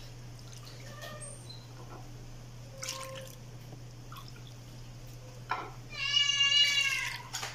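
A cat meows once, a long call about six seconds in, over a steady low hum. A few faint clicks come before it.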